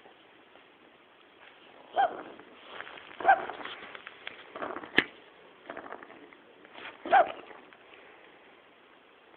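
A cat coughing in short bursts, about four times over several seconds, with a sharp click about five seconds in.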